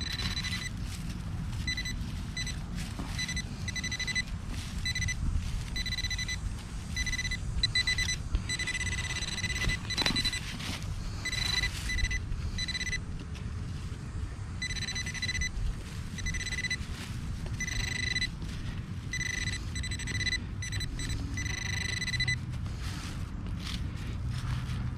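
Metal detector's steady high-pitched beep tone sounding on and off in repeated bursts of about half a second to a second and a half each, signalling a metal target close by while it is pinpointed. A low rumble of handling and wind runs underneath.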